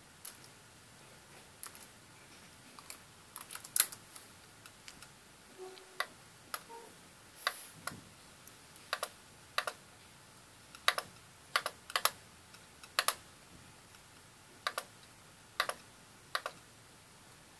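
Computer keyboard being typed on slowly and unevenly: single keystrokes and short runs of two or three clicks with pauses between them, one keystroke louder than the rest about four seconds in.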